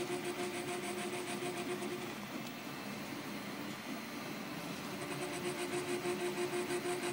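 Tiertime UP Plus 2 3D printer running a print with its hatch speed raised to 100 mm/s: the stepper motors whine in steady tones with a fast, even pulsing as the head moves. The whine fades for a few seconds in the middle, then comes back.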